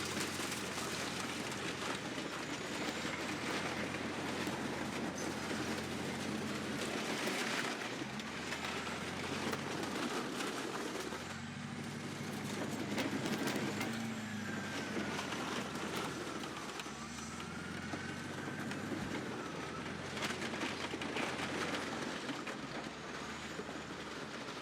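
Bulldozer's diesel engine running under load, with clanking and the crunch of dirt-bike metal being crushed beneath it. A squeal rises and falls a few times about halfway through.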